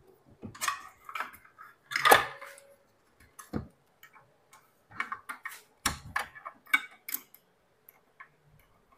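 Irregular clicks and knocks from a cordless circular saw being handled on a bench. There is a louder knock about two seconds in and a quick run of clicks from about five to seven seconds; the motor is not running.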